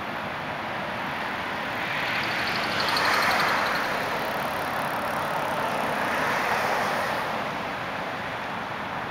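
Passing street traffic: vehicles going by on a city street, their tyre and engine noise swelling to a peak about three seconds in and again about six and a half seconds in. A brief rapid ticking rides on the first peak.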